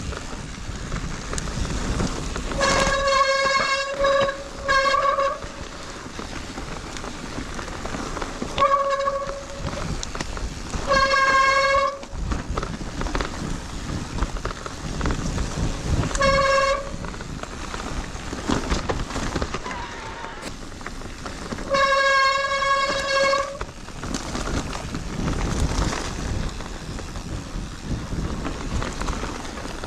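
Six loud honking tones of one steady pitch, each lasting half a second to a second and a half, spread across the stretch over steady wind and riding noise.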